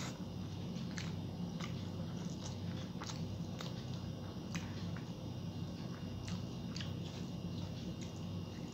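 A person chewing a mouthful of rice and fried vegetables eaten by hand, with short wet clicks and small crunches two or three times a second.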